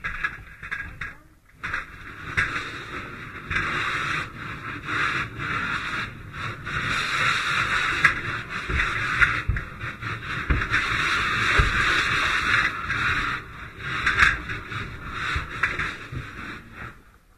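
Fire hose nozzle flowing water: a loud, steady hissing rush that cuts out briefly a few times and stops just before the end.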